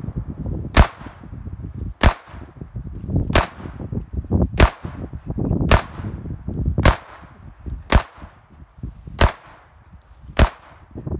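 Semi-automatic pistol fired shot after shot at an even pace, nine sharp reports about a second apart, each with a short ringing tail.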